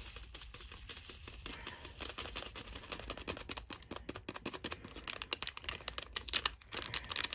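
Tiny diamond-painting diamonds poured from a small plastic baggie into a screw-top storage jar: a rapid patter of tiny clicks that thickens about two seconds in.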